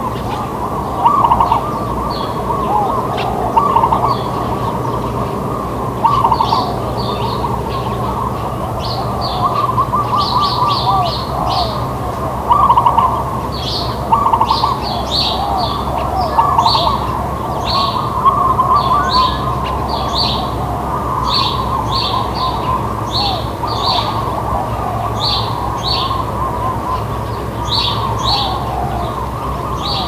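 Doves cooing continuously among other birds, with house sparrows chirping in short repeated notes that grow frequent from about six seconds in, over a steady low background hum.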